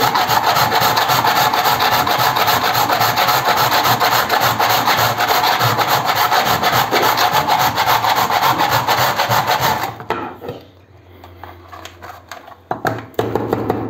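A block of ice being grated on a metal box grater, shaving it to fine snow: rapid, continuous rasping strokes that stop about ten seconds in, followed by a few light knocks.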